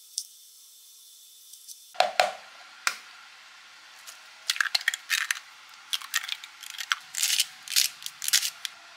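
Eggs knocked against a hard edge and cracked open into a plastic jug, with a few sharp knocks about two seconds in. Then a hand-twisted seasoning grinder is turned over the eggs in short runs of rapid clicks.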